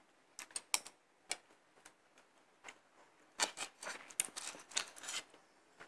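Metal spoon and fork clinking and scraping on a ceramic plate while cutting and picking up food. A few light clicks come in the first second, then a busier run of taps and scrapes from about three and a half to five seconds in.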